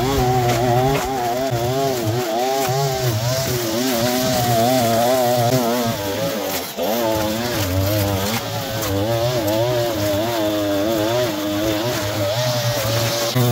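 Two-stroke petrol line trimmer running at high revs while cutting through long grass, its engine pitch wavering up and down continuously, with a brief dip about two-thirds of the way through.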